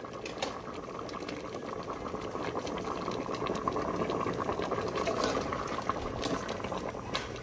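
Bamboo-shoot curry bubbling at a boil in an aluminium pot. The bubbling grows louder toward the middle, and near the end a ladle is stirred through the pot.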